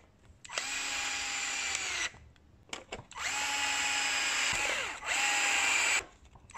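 Makita cordless screwdriver driving small screws into a plastic chassis infill, in three runs. The longest is about a second and a half, and the motor whine climbs in pitch at the start of each run, then holds steady.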